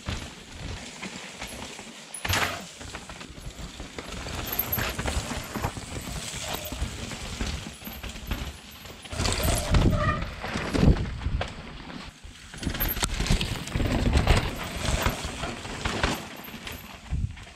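Mountain bike descending a rough dirt trail: tyres crunching over dirt and rocks, and the bike knocking and rattling on the bumps, with a heavy low rumble of wind throughout.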